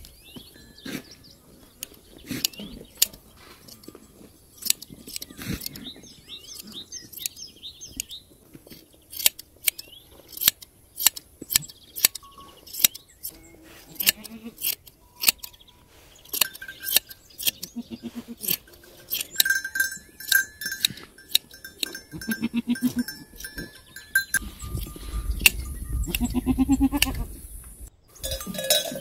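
Hand blade shears snipping through a goat's long hair in sharp, irregular clicks. Later an animal's bell rings, and goats bleat twice near the end.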